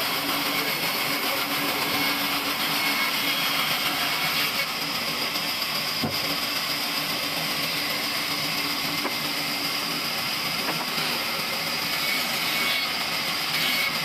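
Sawmill band saw running steadily as its blade cuts lengthwise through a log, a continuous hiss of sawing over the machine's drone.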